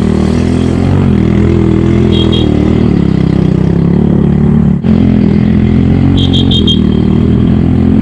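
Small motorcycle engine running steadily under the rider, with a brief break about five seconds in. A few short high chirps sound over it.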